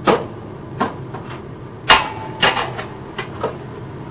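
Irregular metallic knocks and clacks from the metal parts of a homemade pendulum-and-lever oscillator rig, about seven in all; the loudest, about two seconds in, leaves a brief ringing tone.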